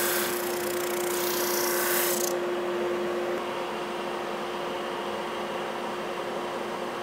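SuperMax 16-32 drum sander, a 1.5 horsepower machine, running as its conveyor feeds an end-grain hardwood cutting board under the abrasive drum, with a gritty sanding hiss over a steady motor hum. The high hiss drops away about two seconds in, leaving the machine's steady running sound.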